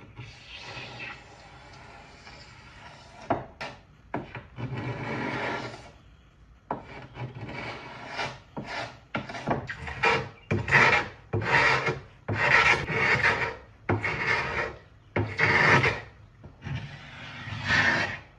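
A carbide hand scraper dragged over and over across wood veneer, shaving off a hard, shiny sprayed-on paint finish. It starts with a few long, slow strokes, then turns to shorter, quicker strokes in a steady rhythm, about one and a half a second.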